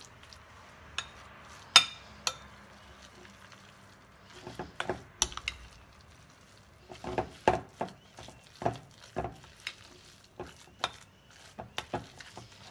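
A metal utensil stirring a soft ricotta and soaked-bread mixture in a glass bowl, clinking and scraping against the glass in irregular taps. The sharpest, ringing clink comes about two seconds in, and the taps come thicker in the second half.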